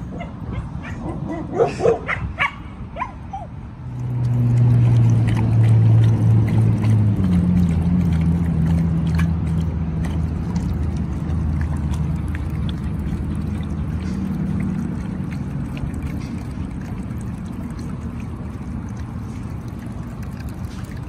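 Dogs yipping and barking for the first few seconds. Then a loud steady low hum starts, steps down in pitch a couple of times, and slowly fades.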